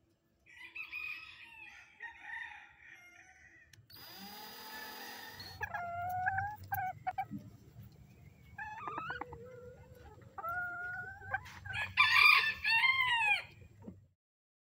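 Chickens clucking and calling, with a rooster crowing near the end, the loudest sound.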